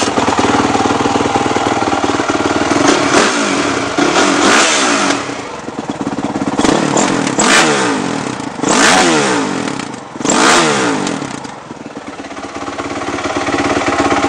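Honda CRF450 single-cylinder four-stroke dirt bike engine, hot, running and revved in about five quick throttle blips, each rising and falling in pitch, with sharp pops at the peaks, then settling back toward idle near the end. The pops come from the hot-start lever dumping extra fuel into the carb.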